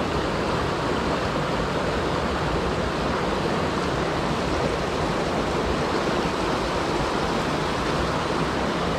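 Stream water rushing steadily, an even, unbroken roar of flowing water.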